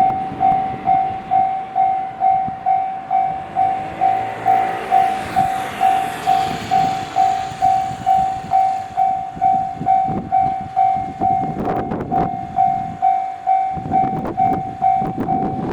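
Japanese level-crossing warning bell ringing, an electronic tone pulsing about twice a second. A train passes through the crossing: its running noise swells from about three seconds in and fades after about nine, with wheel clicks near the end.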